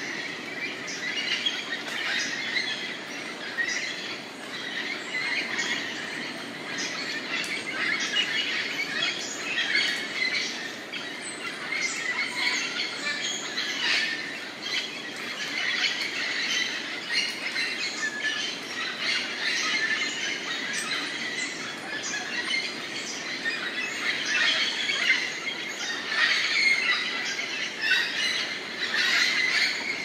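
Chorus of many tropical rainforest birds calling at once: a dense, continuous tangle of short chirps, squawks and squeals overlapping throughout.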